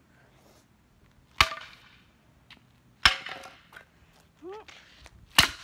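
A wooden dining chair being smashed against concrete: three sharp cracking impacts with short ringing tails, the last one the loudest, knocking off only a small piece.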